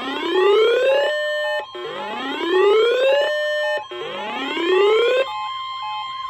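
Emergency alert siren tones: a whoop that sweeps upward in pitch three times, each rise about a second and a half long, over a steady high tone and short repeated beeps. Near the end the whoops stop and a warbling tone carries on.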